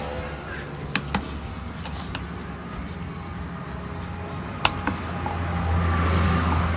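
Birds chirping briefly a few times over a steady low hum, with two quick pairs of sharp clicks, about a second in and near the five-second mark.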